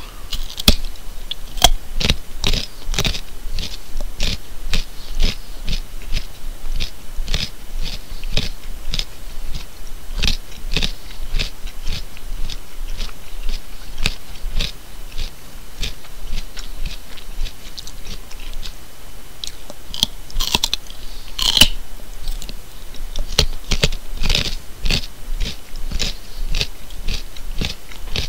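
A person chewing raw carrot: a steady run of crisp crunches, two or three a second, with a few louder crunches about three quarters of the way through.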